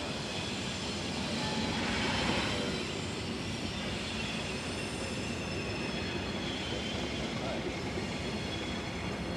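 ALCO diesel locomotive running steadily as it moves slowly along the yard track, swelling a little about two seconds in.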